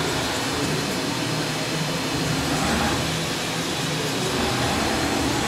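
Doosan DNM-400 vertical machining center with its Y-axis being jogged: a steady machine hum and whir of the axis drive as the telescoping steel way covers slide.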